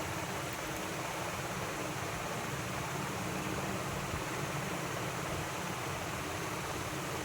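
Steady, unchanging hiss-like noise.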